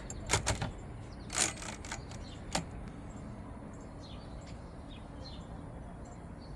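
A few sharp clacks from a 1954 Smith-Corona Skyriter portable typewriter in the first three seconds, including one longer stroke about a second and a half in. Birds chirp faintly in the background.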